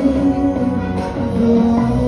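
A man singing into a microphone over instrumental accompaniment, amplified through PA speakers; about one and a half seconds in he settles into a long held note.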